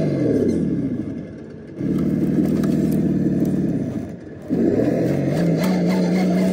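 RC rock crawler's engine sound simulator (ESS-Dual+) playing a simulated truck engine through its speaker, following the throttle. The revs fall back, fade out briefly, and hold steady. The sound fades out again about two-thirds of the way in, then revs back up.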